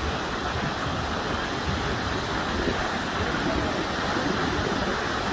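Muddy floodwater from a dam spillway rushing in a steady, shallow flow across open ground, with wind buffeting the microphone.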